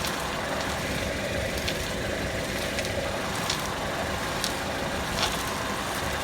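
Skoda Rapid steering rack knocking: irregular sharp knocks about once a second over the car's steady running noise. The knock is the fault in the rack, a warranty replacement that has started knocking again after 5,000 km.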